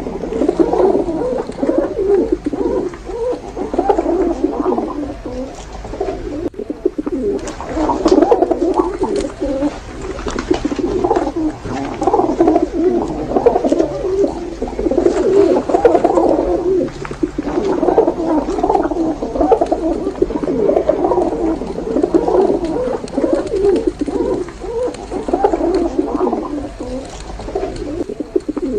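Many pigeons cooing at once, their calls overlapping into a continuous chorus.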